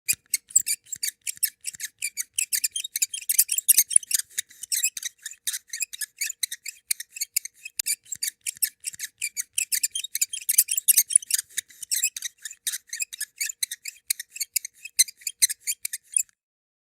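Rapid, high-pitched squeaking, short squeaks at about six a second, stopping near the end.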